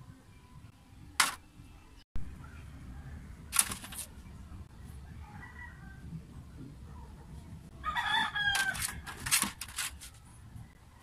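A rooster crowing about eight seconds in, a pitched call lasting a second or two. Earlier come two sharp clicks about two seconds apart.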